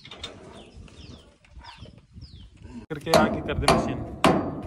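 Small birds chirping faintly in short falling notes. About three seconds in, a hammer starts striking metal in sharp blows, roughly two a second, some with a brief ring.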